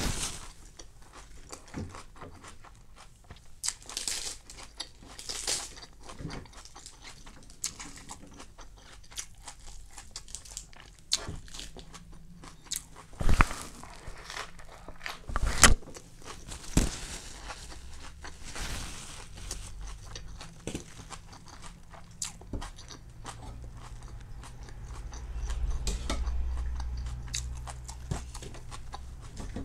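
Close-up biting, crunching and chewing of crispy rice pancake (bánh xèo): irregular sharp crackling crunches, the loudest about halfway through. A low hum rises near the end.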